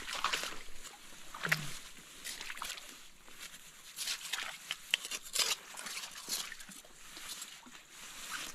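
Rustling and scraping among leaves and stones on the forest floor, with scattered sharp clicks and a short low grunt about a second and a half in.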